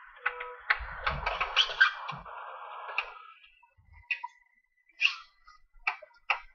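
Marker pen scratching across paper: a busy run of quick strokes and taps for about three seconds, then only a few scattered ticks, with a faint steady high tone underneath.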